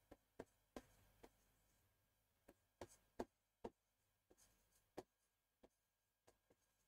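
Faint, irregular taps and clicks of a stylus on an interactive display screen during handwriting, about seven short ticks over several seconds against near silence.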